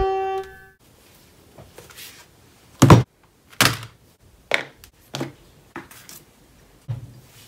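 Drawing supplies (a pencil, an eraser, a cork coaster) set down one after another on a hardcover notebook and tabletop: a series of about seven short knocks and thunks, the loudest about three seconds in. The last notes of a plucked guitar tune fade out at the start.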